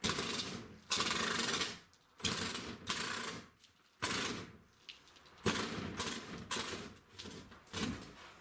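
Reciprocating saw cutting through a wooden wall in about eight short, abrupt bursts, the blade stopping and starting as the cut is worked along.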